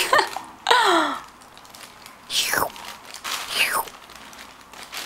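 Young children's breathy mouth sounds while licking ice-cream popsicles: a short falling vocal sound about a second in, then two breathy downward sighs about a second apart midway.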